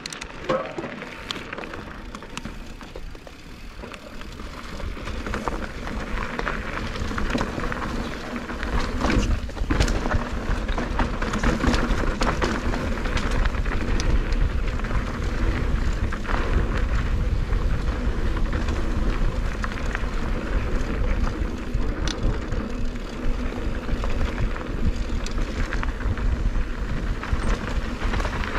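Mountain bike riding fast down a dirt trail: knobby tyres crunching over gravel and dirt, the bike rattling and clicking over bumps, and wind buffeting the microphone. It grows louder over the first ten seconds, with a heavy rumble from about eight seconds in.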